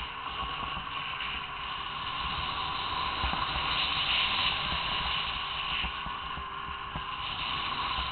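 Arctic Cat M1000 two-stroke snowmobile running steadily under way, heard from a camera riding on it, as an even engine-and-motion noise with small swells in level.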